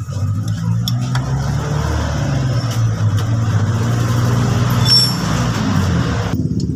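Small motorcycle engine running, with a loud rushing noise over it that cuts off suddenly near the end.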